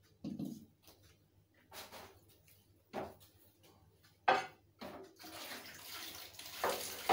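A few knocks of dishes being handled, the loudest about four seconds in, then a kitchen tap starts running water into a bowl about five seconds in and keeps running.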